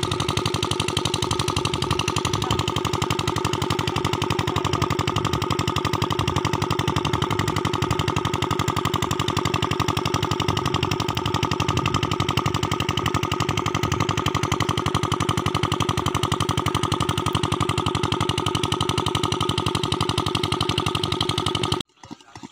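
Small engine-driven water pump running steadily at a fast, even knock, cutting off suddenly near the end.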